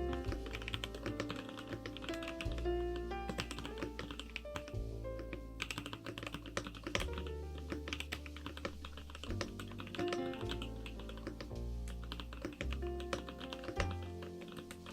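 Continuous typing on a KBDFans Tofu65 mechanical keyboard with Kailh Icecream switches: a quick, irregular stream of keystroke clicks, over background music.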